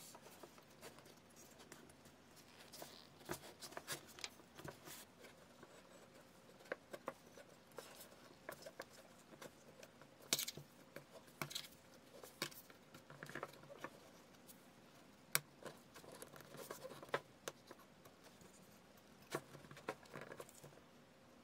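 Faint, scattered clicks, taps and light scrapes of wooden dowels being fitted into drilled wooden posts and set down on a tabletop.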